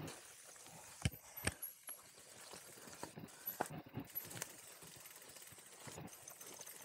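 Mountain bike knocking and clunking at irregular intervals as it rides over a rough dirt trail, with two sharper knocks about a second in.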